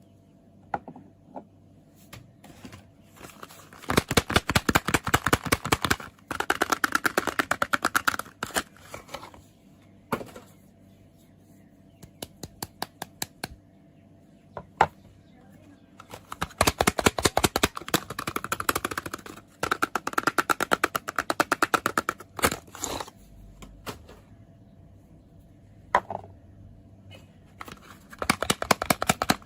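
Soap packaging being unwrapped by hand, crinkling and crackling in several bursts of rapid ticks with short pauses and single clicks between.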